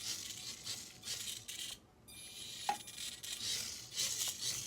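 A tiny 1/64-scale RC car's electric motor and tyres running in short spurts: a faint, high, hissing whir that comes and goes and briefly stops near the middle, with one small click just after.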